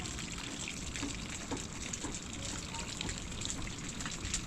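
Water trickling steadily, with small scattered clicks.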